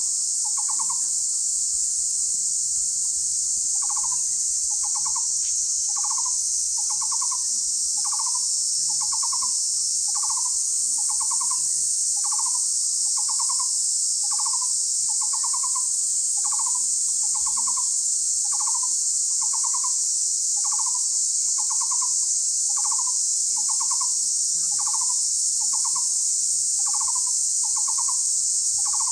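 An animal call repeated about once a second, each a short, quick-pulsing note, over a louder steady high-pitched drone.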